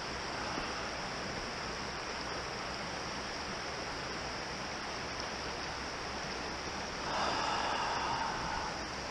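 Small mountain creek running steadily over a rocky bed. About seven seconds in, a louder rush of noise lasts for roughly a second and a half.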